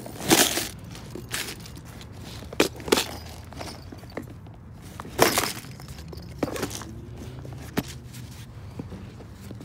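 A clear plastic tackle box being pulled from a nylon tackle bag and handled: a series of short rustles, scrapes and plastic knocks, the loudest just after the start and about five seconds in, with a sharp click near the end, over a low steady hum.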